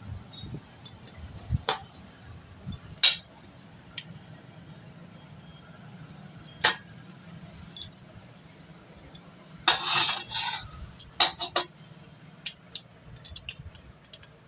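Irregular metal clinks and taps of a 17 mm socket and wrench on a motorcycle's engine oil drain bolt as it is worked loose, with a quick run of clinks about ten seconds in.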